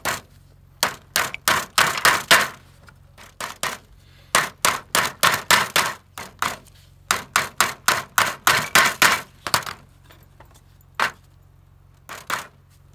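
Hammer driving small nails into a wooden medium Langstroth beehive frame. The strikes come in several runs of quick taps, up to about four a second, with short pauses between runs.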